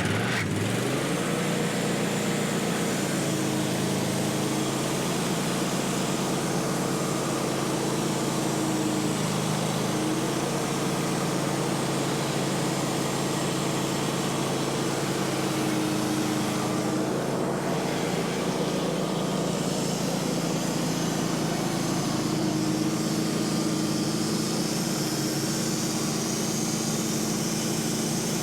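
Sawmill's engine rises in pitch about a second in, then runs steadily while the mill saws a pine log into boards.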